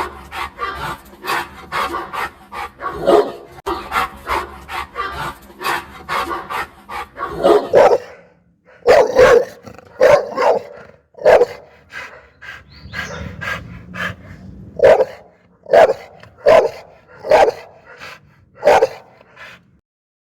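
Pit bull barking aggressively: a fast run of barks at first, then single loud barks about one a second.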